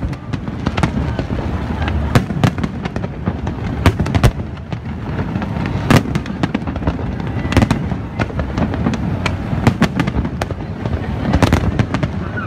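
Aerial fireworks display: a dense, irregular string of sharp bangs and crackles from bursting shells, with a loud report about six seconds in, over a constant low din of further explosions.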